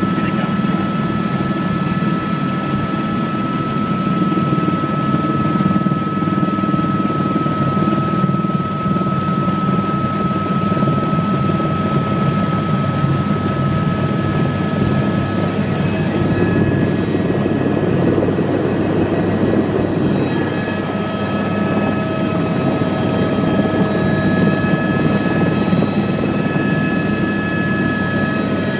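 Helicopter engine and rotor noise heard inside the cabin on the approach to landing: a dense, steady rumble with a steady high-pitched whine over it, and further whining tones joining about halfway through.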